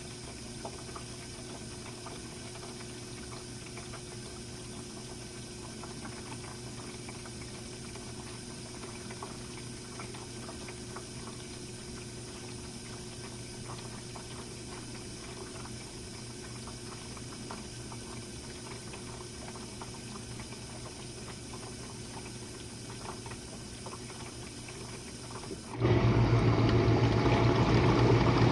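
Jenn-Air dishwasher running its Quick Wash cycle: a steady low hum with faint trickling and ticking of water inside the tub, until near the end its pump motor kicks in suddenly and water rushes loudly with a strong hum.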